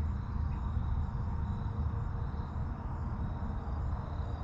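Steady low outdoor rumble, with faint steady high-pitched tones above it.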